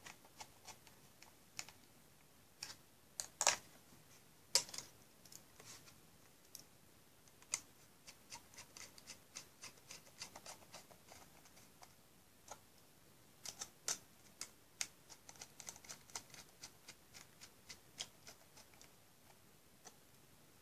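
Precision screwdriver turning small screws into a metal hard-drive caddy: faint, irregular metallic clicks and ticks, some in quick runs, with a few louder clicks.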